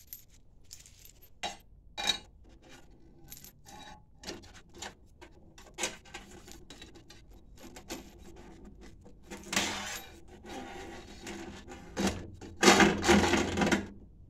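Handling noise of a kitchen faucet being fitted to a stainless steel sink: scattered clicks and taps as the supply hoses are fed down through the deck plate's hole. Two louder stretches of rattling and scraping come about two-thirds through and near the end, as the hoses and faucet body rub against the sink and plate.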